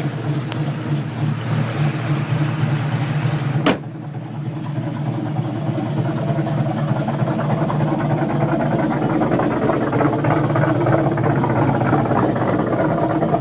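Car engine idling steadily, with the exhaust leaking. A single sharp click comes a little under four seconds in.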